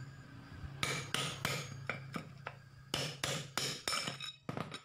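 Hammer striking a steel drift rod to knock the needle bearing out of a Yamaha Mio Sporty's CVT pulley. It gives a series of sharp metallic taps in two bursts, one about a second in and another from about three to four and a half seconds.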